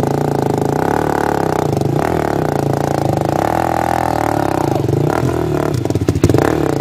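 Vehicle engine running, its revs rising and falling over and over, with a few knocks and rattles near the end.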